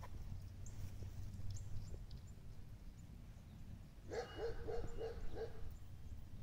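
A dog barking: a quick run of about six short barks about four seconds in.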